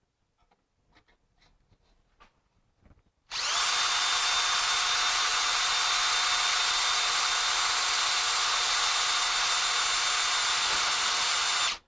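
Power drill running at a steady speed as it bores a hole, starting about three seconds in and stopping abruptly near the end, with a few light clicks before it starts.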